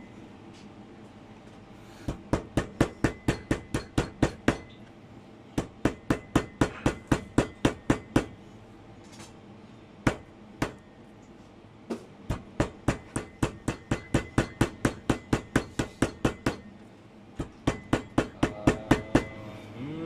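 Metal meat mallet with a ridged head pounding beef on a plastic cutting board: runs of quick, sharp blows about five a second, broken by pauses of a second or two.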